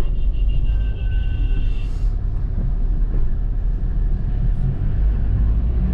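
Steady low engine and road rumble of a vehicle driving through city traffic, heard from inside the cabin. A brief high steady tone sounds in the first two seconds.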